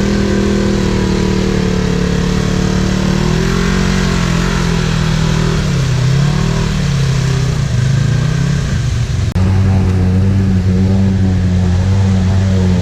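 Off-road side-by-side or ATV engine running loud, its pitch rising and falling as the throttle is worked. About nine seconds in it breaks off abruptly into a steadier, lower engine drone.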